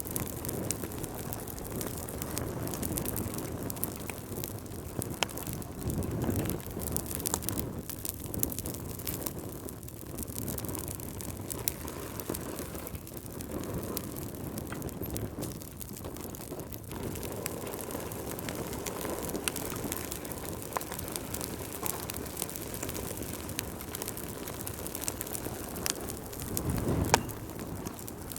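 Wood fire burning in a fireplace: a steady low rumble of flames with scattered sharp crackles and pops, swelling a little about six seconds in and again near the end, where one pop is louder than the rest.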